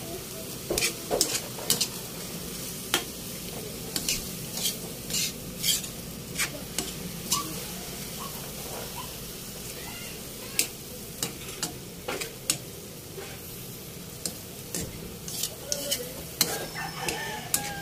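Pork sizzling in its marinade in a wok, stirred with a metal spatula that scrapes and clinks against the pan in irregular strokes over a steady frying hiss.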